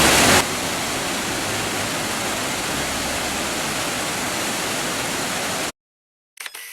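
Waterfall rushing as a steady, even roar of water, louder for the first half-second. It cuts off suddenly near the end, followed by a brief faint sound.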